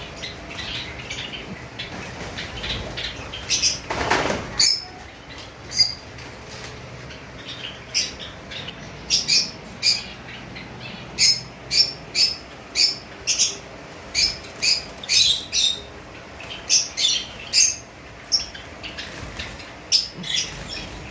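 A flock of Java sparrows calling with many short, sharp chirps, their wings fluttering, with a louder burst of flapping about four seconds in.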